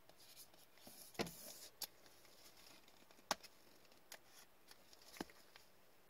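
Faint handling noise of a trading card being slid into a rigid clear plastic toploader by gloved hands, with a few scattered sharp clicks and taps of the plastic, the loudest about halfway through.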